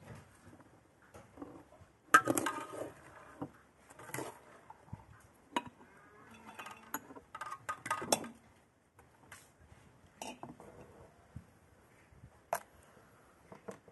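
Quince slices and pomegranate seeds being dropped and poured into large glass jars: irregular clinks and knocks on the glass, with a small drinking glass tapping the jar rim. The clinking comes in clusters, loudest about two seconds in, then thins to single clicks.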